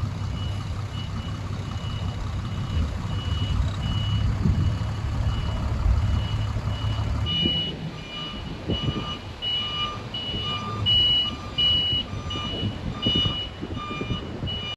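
A large vehicle's reversing alarm beeping at a steady pace, a little over one beep a second, over the low rumble of its engine running. About seven seconds in, the engine rumble drops and the beeping becomes louder.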